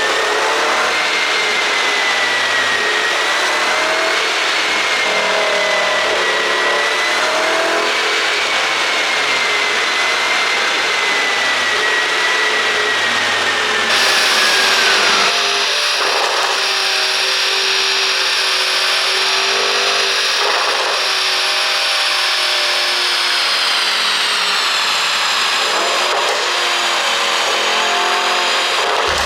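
Mercedes-AMG GT 63 S twin-turbo V8 running steadily, a loud continuous engine and exhaust noise with a whine that wavers slowly in pitch. The tone shifts about halfway through. No separate exhaust pops stand out.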